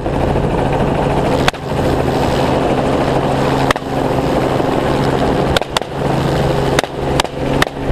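Helicopter running steadily, with seven rifle shots fired at irregular intervals, the last several coming faster near the end.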